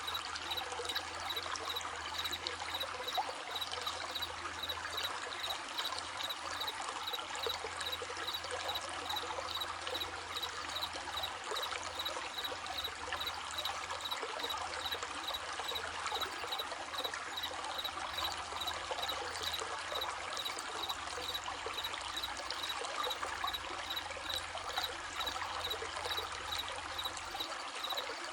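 Running stream babbling steadily, with crickets chirping in an even, continuous pulse over the water.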